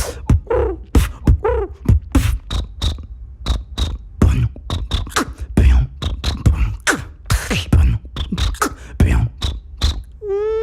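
Vocal beatboxing: a fast run of mouth-made kick, snare and hi-hat strokes, mixed in the first second or so with short falling voiced calls. Near the end it switches to a steady held hum.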